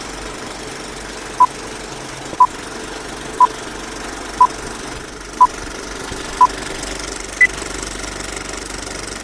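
A series of short electronic beeps, one a second: six at the same pitch, then a seventh higher one, like a countdown or time signal. They sound over a steady background hiss and hum.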